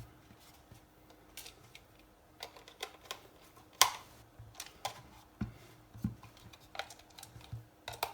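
Irregular small clicks and taps of a screwdriver and screws working against a plastic oscilloscope case, with one sharper click a little before the middle.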